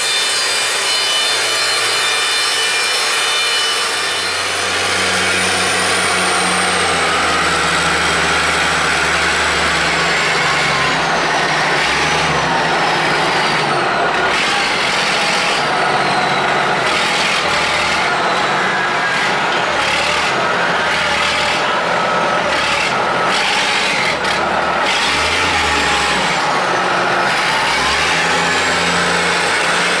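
A band sawmill cutting through a log. From about four seconds in, a wheel loader's diesel engine is running, its pitch shifting up and down as the machine moves logs, with a thin gliding whine above it.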